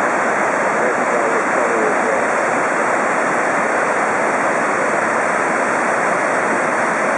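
Whitewater of the Zambezi River below Victoria Falls rushing through its rocky gorge: a steady, loud, unbroken rush of water.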